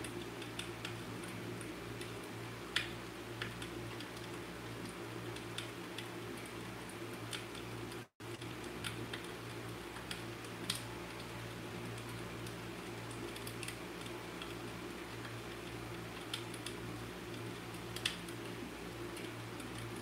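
Fireplace crackling: irregular sharp pops and snaps over a steady low hum and hiss. The sound cuts out for an instant about eight seconds in.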